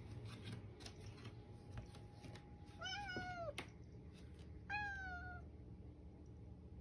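Grey-and-white long-haired domestic cat meowing twice: one call about three seconds in that rises and then falls, and a shorter one about five seconds in that falls in pitch.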